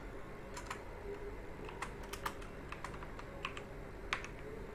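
Computer keyboard typing: about ten quick, irregularly spaced key presses, fairly quiet, over a faint steady low hum.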